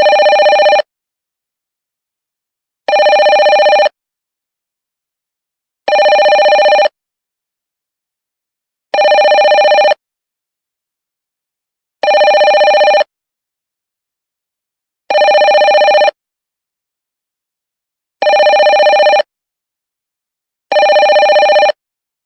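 Telephone ringing: eight rings of about a second each, repeating roughly every three seconds with silence between.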